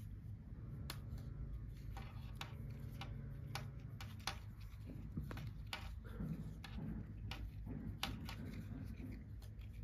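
Faint scattered clicks and soft rustling of hands sewing yarn through a crocheted amigurumi toy with a needle, over a low steady hum.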